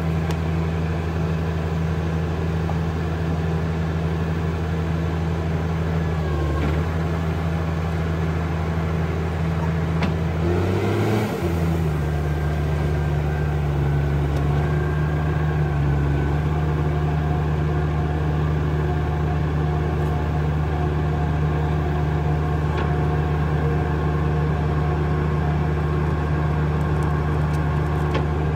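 Diesel engine of a crawler logging tractor running steadily. Its engine speed rises briefly and falls back a little after ten seconds in, then it settles at a steady pace again.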